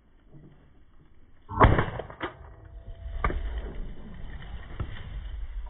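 Wind rumbling on the microphone, with a sharp knock about a second and a half in and a few fainter knocks after it.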